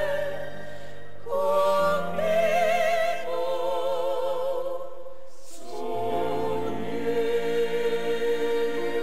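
Choir singing a slow ballad, long held notes with heavy vibrato, with a short break about five seconds in before one long sustained note.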